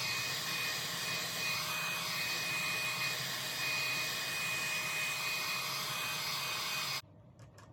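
Hair dryer blowing steadily on high with a steady whine, heating a plastic sole protector until its edges curl; it stops suddenly near the end.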